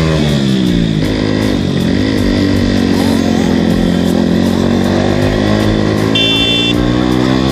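Motorcycle engine while riding, easing off from a rev at the start, rising briefly about two seconds in, then running at a steady lower speed. A short high beep sounds near the end.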